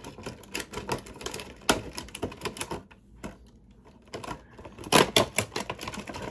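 Stiff plastic toy packaging being wrestled open by hand: rapid, irregular clicks and crackles, with a denser, louder flurry about five seconds in.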